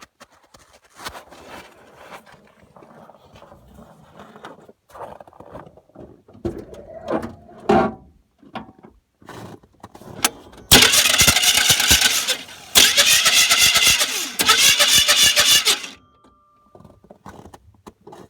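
Starter motor of a 1989 GMC truck's 350 V8 spinning in two loud tries, about two and three seconds long, with a fast, even rattle, while the engine itself does not turn over. The starter turns the flexplate and torque converter without cranking the engine, most likely a broken flexplate. Small quiet knocks and clicks come before the first try.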